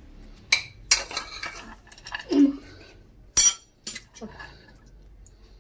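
Kitchen utensils and dishes clinking as almonds are set on kheer in a serving dish: a handful of separate sharp clinks and knocks, the loudest a ringing clink about three and a half seconds in.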